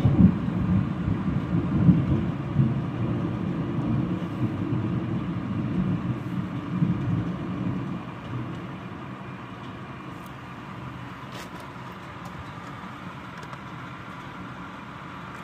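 Rolling thunder: a low rumble, loudest at the start, that fades away over about eight seconds, leaving a steady quieter hiss.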